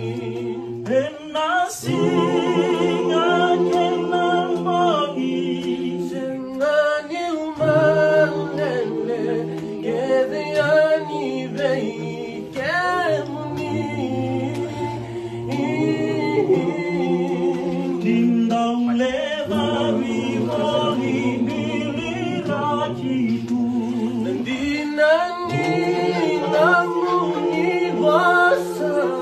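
A group of men singing a Fijian hymn a cappella in several-part harmony, holding long chords in phrases of about five or six seconds with short breaks between them.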